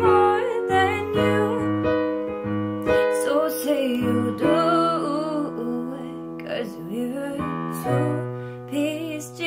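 A woman singing long, bending held notes of a slow pop ballad over sustained keyboard chords.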